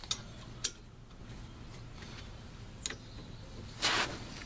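Sharp metal clicks of a combination wrench being fitted to and worked on a brake caliper mounting bolt, with a short scraping burst about four seconds in.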